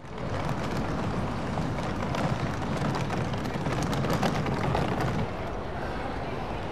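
Street noise: a steady rumble of traffic and suitcase wheels rolling over paving, with many small clicks running through it. It starts abruptly.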